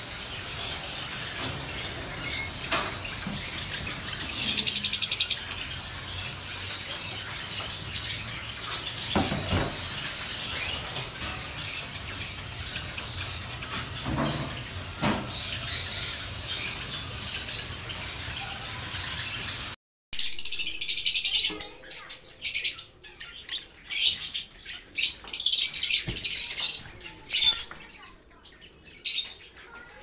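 Caged lovebirds chirping. There is a quick run of high chirps about four seconds in and scattered chirps over a steady background hiss. After a cut partway through comes a louder, busier stretch of high chirping.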